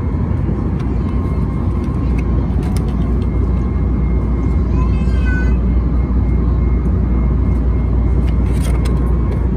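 Steady low roar of an Airbus A321neo's passenger cabin, engine and airflow noise, with a few light clicks as the plastic seatback tray table is unlatched and lowered.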